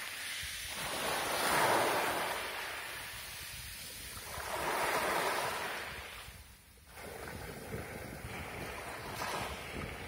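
Small sea waves breaking and washing up a sand-and-pebble beach, the foam hissing. The wash swells twice, about three seconds apart, and drops away briefly about two-thirds of the way through.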